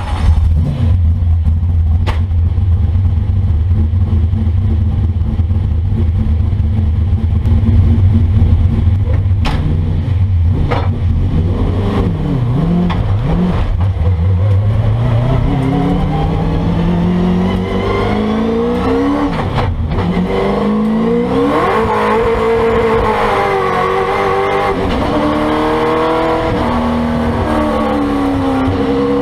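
1970 Chevrolet Camaro Trans Am race car's V8 heard from inside the cabin: it runs at a steady low idle with a few sharp knocks, then the car pulls away, the revs climbing, falling suddenly at a gear change and climbing again, before it runs on at higher revs that rise and dip.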